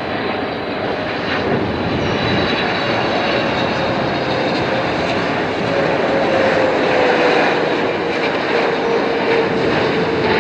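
Boeing 777-300ER's GE90-115B turbofan engines on final approach to land, a steady jet roar that grows slightly louder, with a tone slowly falling in pitch.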